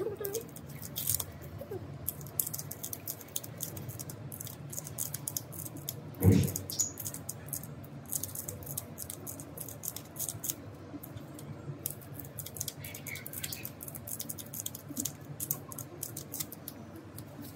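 Hands handling and pulling at a strip of white padding material, giving many small crackling rustles and clicks, over a steady low hum. One louder thump about six seconds in.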